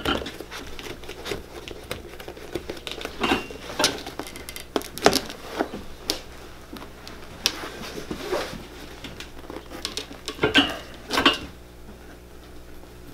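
Metal blade scraping and picking at the leather heel seat of a boot sole: irregular scratches and clicks, with the boot being handled between strokes.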